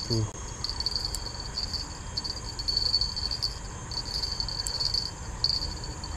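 Insects chirring in a high, steady buzz that comes in stretches of about a second with short breaks between, over a low rumble.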